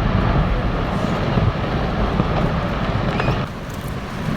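Low rumbling rush of a glacier calving into the water and the wave it throws up, easing suddenly about three and a half seconds in.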